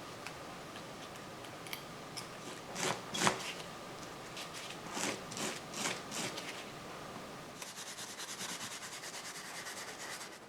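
Workshop handling at a motorcycle gearbox drain plug: rubbing, scraping and a few knocks. Then, from about two-thirds of the way in, a socket ratchet clicking fast and evenly, about seven clicks a second, for about three seconds.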